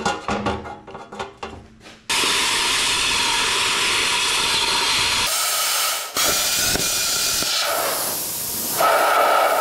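A few sharp metallic clicks, then about two seconds in a handheld plasma cutter fires: a loud steady hiss of air and arc as it cuts a hole through the steel lid of an ammo can. The hiss shifts in tone partway through and breaks off for a moment about six seconds in before resuming.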